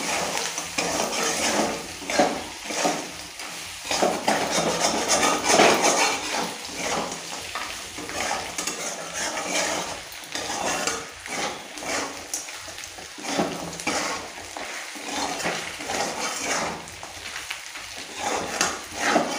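A spatula stirring and scraping around a metal kadai in repeated, uneven strokes while pieces of rohu fish head, onion and ground spices sizzle in hot oil. This is the masala being fried down (kosha) with the fish head.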